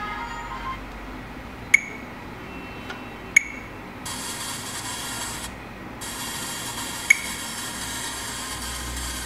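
Three short, sharp clicks from a smartphone as its screen and keys are tapped, over a steady hiss that starts about four seconds in and drops out briefly.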